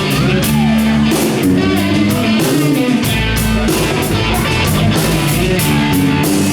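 A live country-rock band plays an instrumental break: guitar with bending notes over a steady drum-kit beat and bass.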